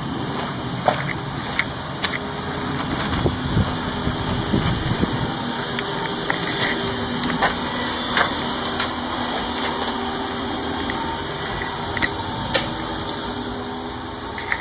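A steady mechanical hum with a faint low drone, broken by scattered sharp clicks and knocks.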